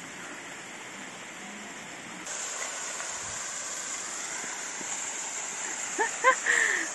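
Steady rush of falling water from a small waterfall, a little louder after a cut just over two seconds in. Near the end come a few short, high-pitched voice sounds.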